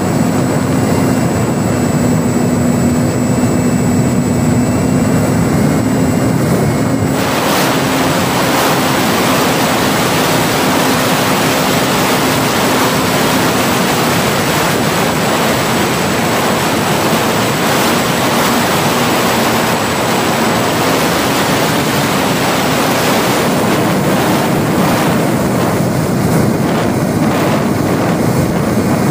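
Electric motor and propeller of a ParkZone Spitfire RC model plane running steadily in flight under heavy rushing wind noise, heard from the plane's onboard camera. About seven seconds in the wind hiss turns harsher and brighter, easing somewhat near the end.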